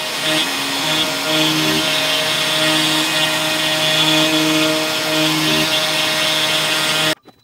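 LowRider CNC router's spindle running and cutting into a wood board: a loud, steady whine with a lower hum whose pitch shifts in steps as the machine moves. It cuts off abruptly near the end.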